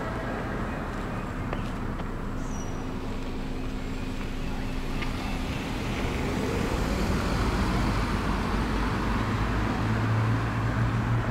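Road traffic on a street: steady engine and tyre noise, with a vehicle's low engine hum growing louder from about halfway through.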